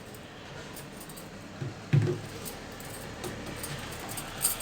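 Plastic drain-pump filter cap at the base of an LG front-loading washing machine being worked loose by hand: a few faint clicks and one sharper knock about two seconds in.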